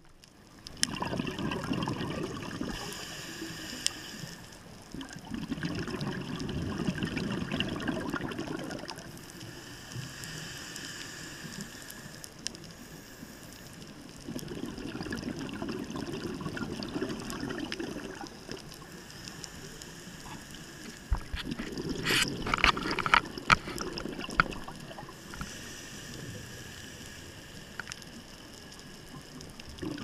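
Scuba diver's exhaled regulator bubbles, heard through a GoPro's waterproof housing: a gurgling burst of bubbles about every seven seconds, with quieter stretches between. A cluster of sharp clicks comes during the fourth burst.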